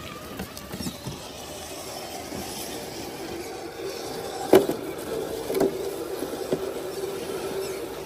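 A 1/10-scale RC rock crawler's electric motor and gears whine steadily as it crawls over the trail. A sharp knock about four and a half seconds in is the loudest sound, with lighter knocks a second or two later.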